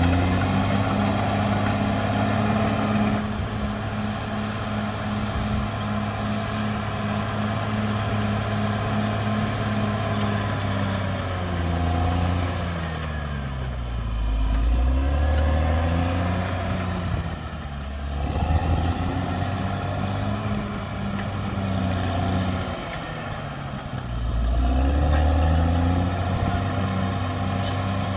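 The diesel engine of a CAT D6R XL crawler bulldozer working, running steadily at first and then repeatedly dropping in pitch and climbing back up as the load and throttle change.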